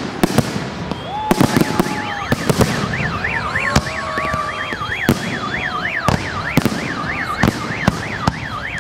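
Fireworks display: a rapid run of sharp bangs and cracks from bursting shells, with a few whistling glides. Through it, from about a second and a half in, an alarm wails, rising and falling about twice a second.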